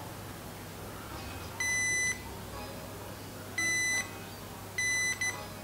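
A digital multimeter's continuity beeper sounds three short beeps, each about half a second long, with a brief blip after the last. The beeps come and go as the probes on the gearbox switch close a circuit.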